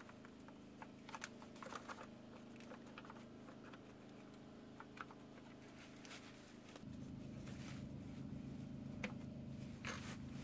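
Faint scattered clicks and light rattles of a plastic starter cover and its bolt being handled and fitted by a gloved hand, over a steady low hum that gets louder about seven seconds in.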